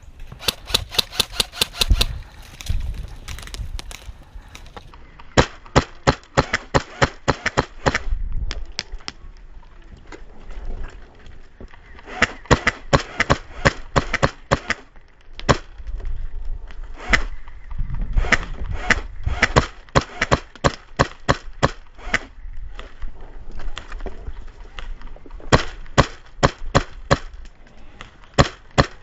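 HPA airsoft rifle with a Polarstar engine firing repeated strings of rapid shots, sharp snapping pops several to the second, with gusts of wind rumbling on the microphone now and then.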